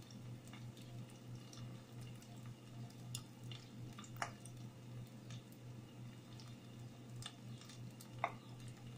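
Breaded sushi ball deep-frying in hot oil: faint sizzling and bubbling with a few sharp pops scattered through it, over a steady low hum.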